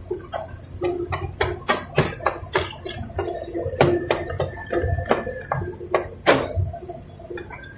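A rapid, irregular run of knocks and clanks, some with a short metallic ring, over a low steady engine hum, as from an excavator working.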